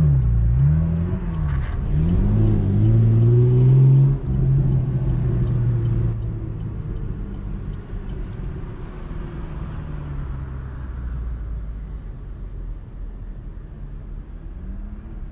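Chevrolet Camaro engine and exhaust revving hard, with the pitch swooping up and down twice before climbing steadily under acceleration. About four seconds in the note cuts off abruptly, and the engine then runs quieter and steadier as the car cruises, its pitch slowly falling.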